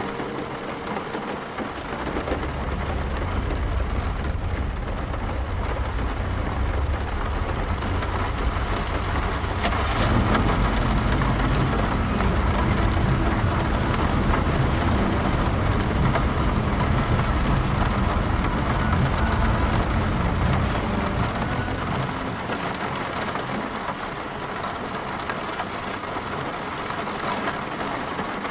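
Steady rain falling on a car, heard from inside. A long low rumble builds about two seconds in, swells around ten seconds and fades away about twenty-two seconds in.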